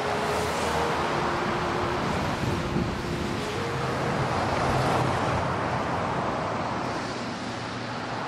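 Steady road traffic noise: the continuous rush of cars and trucks on a busy multi-lane highway. Faint held music notes sit underneath.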